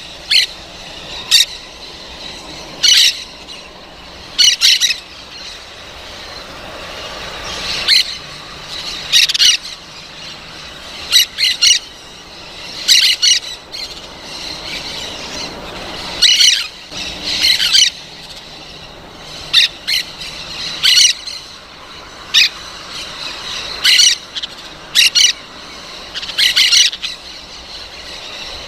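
Parrot squawking: short, harsh, high-pitched calls repeated every second or two, some in quick pairs.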